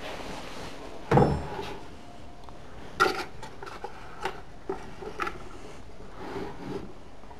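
Wooden nightstand drawer pulled open with a heavy bump about a second in. Objects inside are then handled and set down: a sharp knock about three seconds in, followed by a few lighter knocks and rustles.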